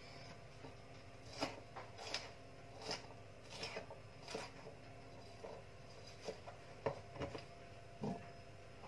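Chef's knife chopping a green capsicum on a plastic cutting board: faint knocks of the blade on the board, irregular, about one or two a second.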